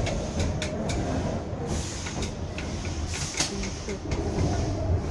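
Narrow-gauge children's railway passenger car running, heard from inside: a steady low rumble with irregular wheel clicks and rattles.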